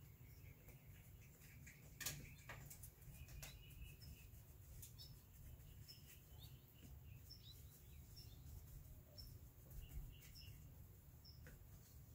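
Near silence with faint, scattered high chirps like small birds calling, and a few soft taps, the clearest about two seconds in.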